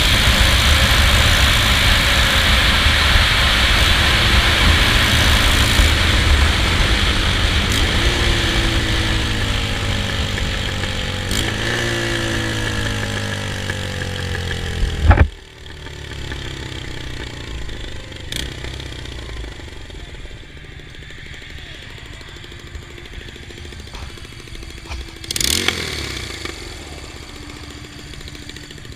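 Honda Rebel 250's air-cooled parallel-twin engine running with an exhaust leak where the header nuts have loosened and fallen off, under heavy wind rush at speed; the engine note falls in steps as the bike slows and downshifts. About halfway through there is a sharp loud crack, after which it is much quieter, with a brief rise near the end.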